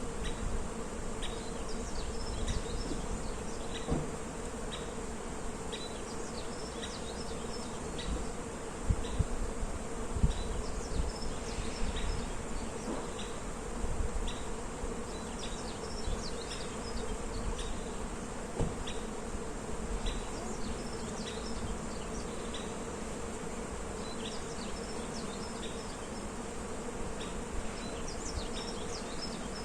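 Bees buzzing in a steady hum among flowering cherry trees. Short high bird chirps repeat about once a second, over a low wind rumble on the microphone with a few louder gusts.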